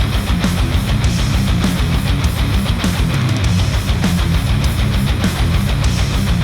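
Heavy metal music with electric guitar over a fast, steady beat, played back through Sennheiser headphones and picked up by microphones at the headphones.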